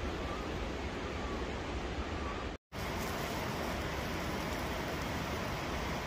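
Steady rushing outdoor noise of the forest, even and without distinct events, broken by a split-second dropout to silence about two and a half seconds in.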